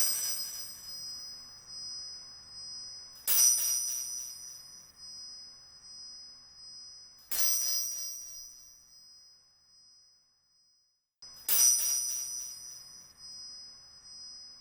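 Outro music of bell-like chimes: three sharp strikes about four seconds apart, each ringing on with a high tone and fading out, after one already ringing at the start.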